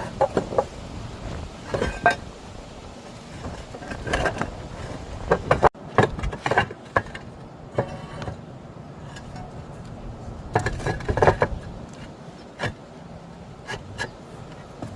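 Roof tiles being handled: clusters of sharp clinks and knocks of hard tile against tile, with scraping, every second or two.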